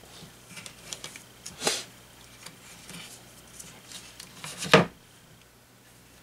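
Hand handling noise from a small shaded-pole fan motor and a nylon cable tie being worked around it: light plastic rustles and ticks. Two louder short scrapes stand out, one a little under two seconds in and a stronger one about three seconds later.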